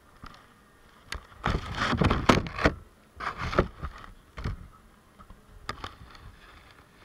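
Honeybees crawling and bumping over the camera inside the hive, their scratching and tapping close to the microphone coming in irregular bursts, loudest about two seconds in.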